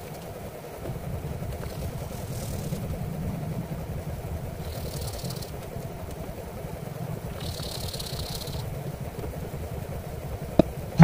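Steady low background rumble with three brief hissing rustles, each about a second long, and a single click near the end.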